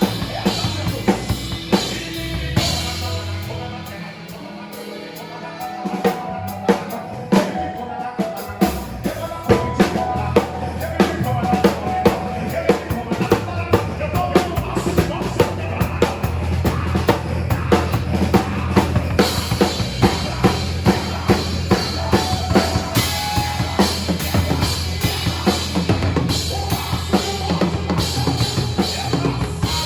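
Live gospel band playing an instrumental passage, with the drum kit's kick and snare keeping a steady beat over bass and keyboards. A few seconds in, the bass and drums drop away briefly, then the full band comes back in.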